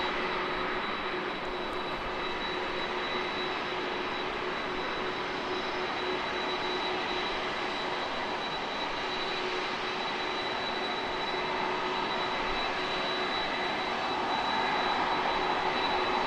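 Jet airliner engines at taxi power: a steady rush with a constant high whine and a lower hum, growing slightly louder near the end.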